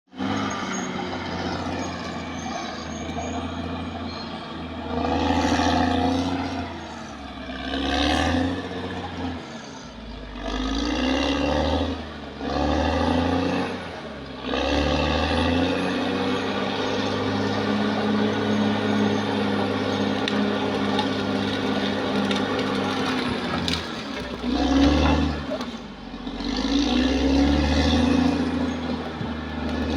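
Caterpillar D6R XL bulldozer's diesel engine running under load, its pitch and loudness rising and falling repeatedly as it revs up and eases off.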